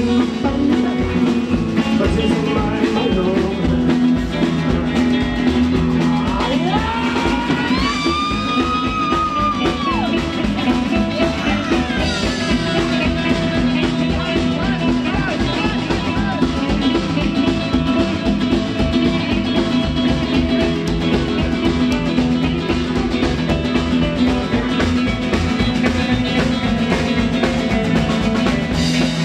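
A live rock-and-roll band playing: acoustic guitar, red hollow-body electric guitar, upright double bass and drum kit. About six seconds in, a high note slides up, holds for a few seconds, then drops away.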